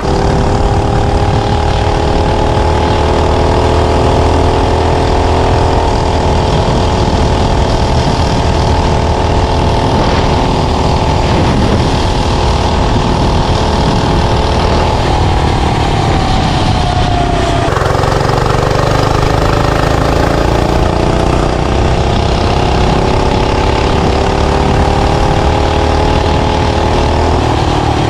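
Mini bike's small 105cc single-cylinder engine running hard at high revs with its governor removed. About fifteen seconds in the revs sag, then climb back up again.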